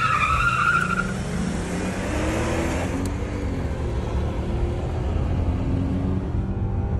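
A Mercedes E55 AMG V8 and a Toyota Crown Athlete V6 accelerating flat out in a race, engines rising in pitch, heard from inside one of the cars. A high squeal comes at the launch in the first second.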